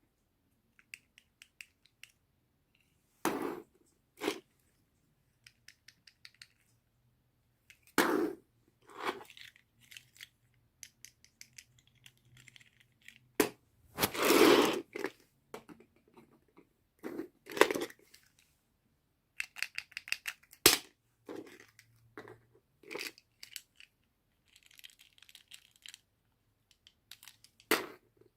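Doll-set packaging being handled and opened by hand: scattered clicks, rustles and short tearing sounds, with quiet gaps between them.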